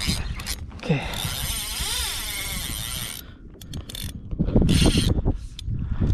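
Saltwater spinning reel working under load as a hooked fish is fought, its gears and drag clicking and buzzing. There is a steady buzz for about two seconds starting about a second in, and a loud low rumble near the end.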